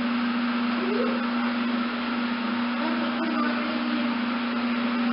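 Steady mechanical hum with an even hiss over it, holding level throughout, with a faint short rising squeak about a second in.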